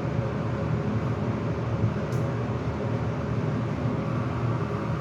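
Elevator travelling between floors: a steady low rumble and hum.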